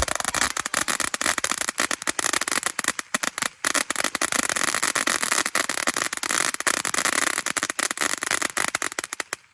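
Fireworks going off in a dense, rapid run of sharp cracks and pops, many a second, which stops abruptly near the end.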